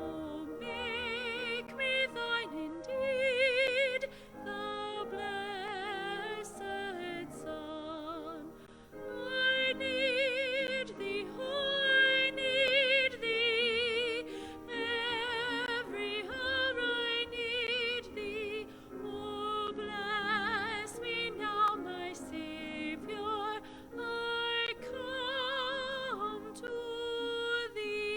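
Solo voice singing in a classical, operatic style with strong vibrato, over a sustained accompaniment.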